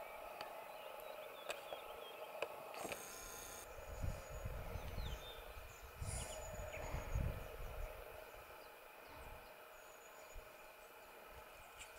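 Faint mountainside ambience: steady insect chirring with a few small chirps and clicks, and low rumbles between about four and eight seconds.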